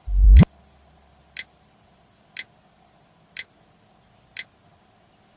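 Small alarm clock ticking once a second. At the start, a loud deep rising swell builds into one tick and cuts off sharply.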